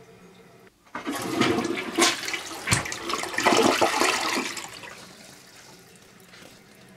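Toilet flushing toilet paper away: the water rushes in suddenly about a second in, stays loud for three or four seconds, then fades as the bowl drains.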